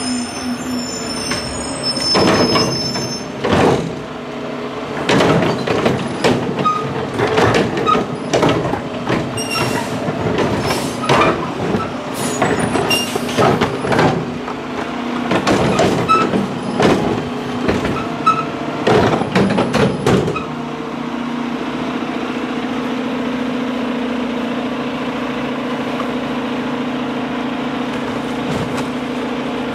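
Mack LR garbage truck's diesel engine idling while recyclables are tipped by hand from a cart and tubs into the steel front-loading can on its forks: a long run of rattling, clanking impacts of bottles, cans and paper hitting the metal. About twenty seconds in the clatter stops and only the steady idle remains. Near the start a brief high squeal as the truck comes to a stop.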